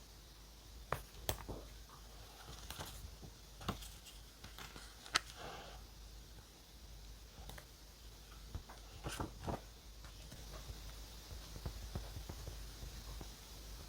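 Close-up desk sounds of pen and paper in a notebook: scattered light taps and short scratches, with a few sharper clicks.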